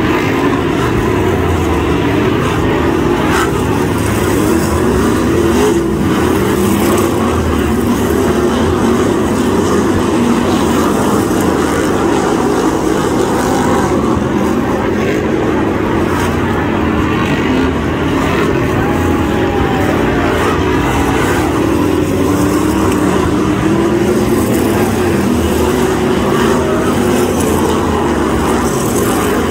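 Several BriSCA F1 stock cars' V8 engines running at racing speed, a dense, steady engine noise whose pitch rises and falls as the cars come round.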